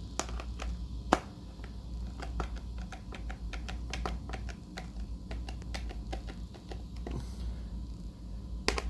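Quick small clicks, several a second with a sharper one about a second in, from a small hand tool driving screws into a plastic car sun visor to tighten the repair to its broken hinge.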